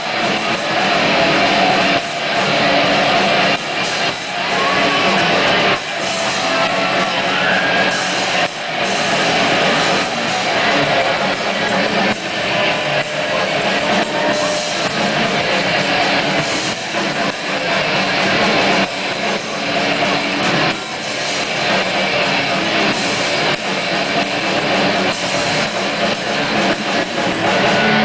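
Live rock band playing loud: several electric guitars through small combo amps over a drum kit.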